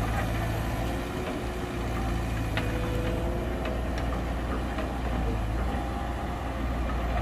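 Heavy diesel engine of construction machinery running steadily with a deep, even note, a few faint clicks over it.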